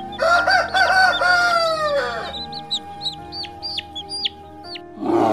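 Chicken giving one long, wavering call that falls away at the end, followed by chicks peeping in a string of short, high, falling cheeps. A brief rough burst of a different sound comes just before the end.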